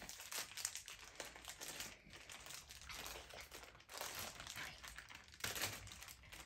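Foil blind bag crinkling and rustling irregularly as it is handled and pulled open by hand.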